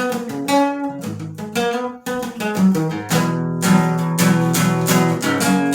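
Guitar playing a song's instrumental intro: a run of separately plucked notes, then fuller ringing chords from about three seconds in.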